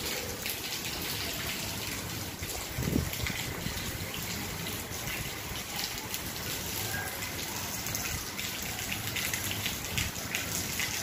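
Heavy rain pouring down steadily, with a dense patter of drops and splashing water. A single thump stands out about three seconds in.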